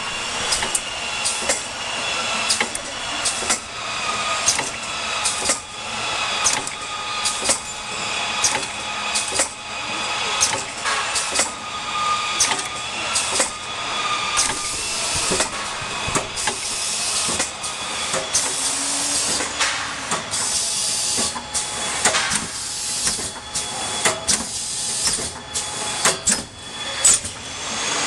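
KFP-2 automatic Nespresso-capsule filling and sealing machine running: its indexing chain conveyor and tooling clack and knock repeatedly, with hisses of pneumatic air between the strokes.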